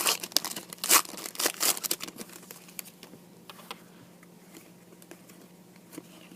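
Plastic trading-card pack wrapper being torn open and crinkled, dense crackling for the first two and a half seconds, then only a few faint ticks and rustles.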